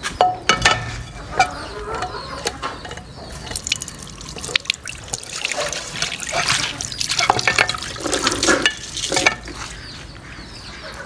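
Water being filled into a container, splashing and trickling unevenly, heaviest in the second half and dying down near the end.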